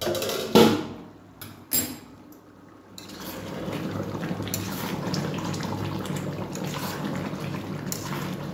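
A few clinks of a steel pan and its lid, then from about three seconds in a steady watery rush and bubbling as water is poured into the hot pan of spice-fried chicken curry.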